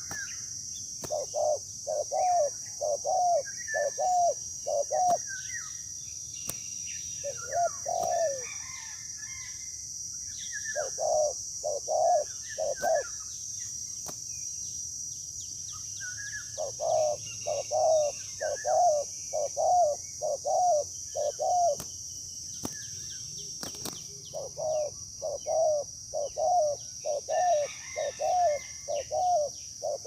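Spotted doves cooing: series of short, low coos at about two a second, coming in bouts of several seconds with pauses between, over a steady high insect drone and scattered small-bird chirps.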